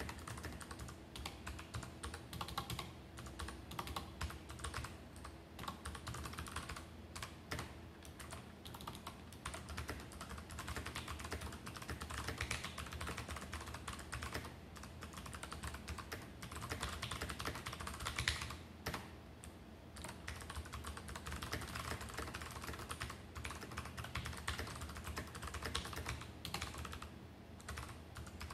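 Continuous fast typing on a Rakk Lam-Ang Pro mechanical keyboard: a steady clatter of key presses and keycaps bottoming out, with no pauses.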